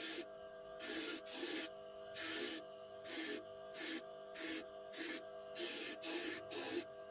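Bench disc sander running with a steady motor hum while a wooden knife handle is pressed against the spinning sanding disc in about ten short strokes, each a brief hissing rasp, roughly one every half second to second.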